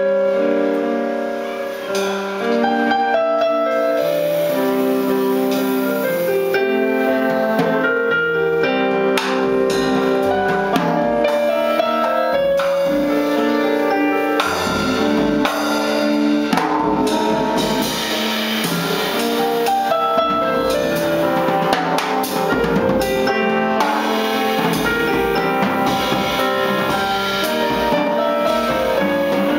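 Small jazz group playing live: electric keyboard chords with saxophone lines over upright bass and drum kit. The drums and cymbals get busier about ten seconds in.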